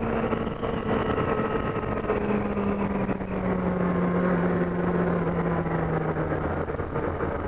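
Yamaha R6 inline-four engine running under way, its note dropping about two seconds in and then falling slowly as the bike slows. Heavy wind noise on the helmet-mounted microphone runs under it.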